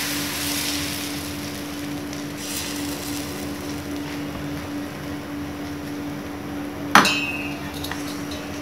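Ragi dosa batter hissing on a hot cast-iron tawa as a steel ladle spreads it, the hiss fading over the first few seconds over a steady hum. About seven seconds in comes a single sharp metallic clink with a brief ring, as the steel ladle is set down.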